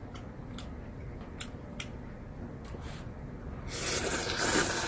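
A man slurping instant ramen noodles: a loud hissing suck of air and noodles starts almost four seconds in, after a few faint clicks.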